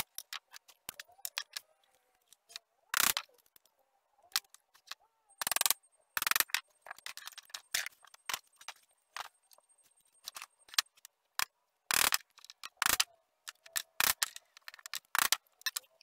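A hand blade shaving and paring wood in short scraping strokes, among scattered clicks and knocks of the wooden frame and tools being handled.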